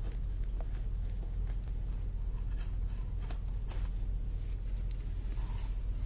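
Scissors cutting through rebonded foam carpet padding: a scattering of short, crisp snips over a steady low hum.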